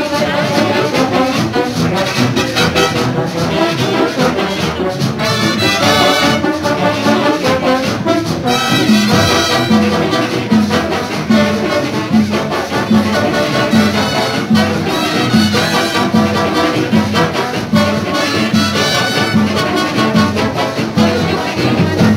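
Marching big band playing Latin-style brass music live, with horns over a steady drum beat.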